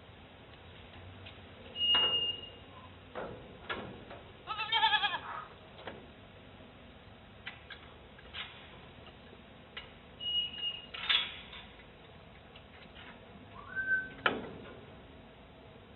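An animal cries once with a wavering pitch about five seconds in, among scattered knocks and a few short, high, steady tones.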